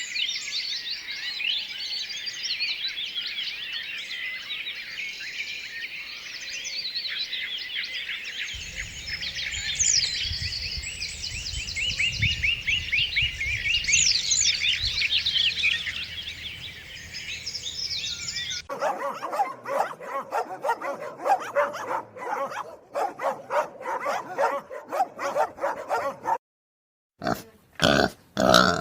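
Dense, high-pitched chirping from many small animals calling over one another. About two-thirds of the way in it cuts abruptly to pigs grunting and oinking in quick rhythmic pulses, broken by a brief silence near the end.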